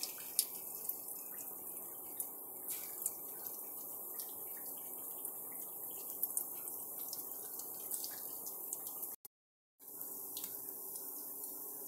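Gram-flour and coriander katli pieces deep-frying in hot oil: a steady sizzle with scattered sharp pops and crackles. The sound cuts out completely for about half a second about three-quarters of the way through.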